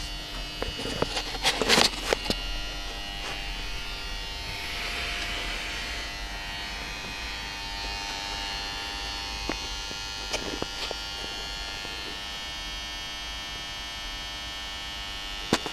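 Steady electrical hum and buzz, with sharp knocks about a second or two in and scattered clicks later on.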